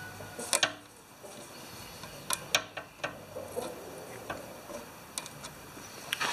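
Irregular small clicks and metallic taps of a hand tool working a part back onto a small-engine carburetor. There is a cluster about half a second in, more around two and a half seconds, and a few single ticks after that.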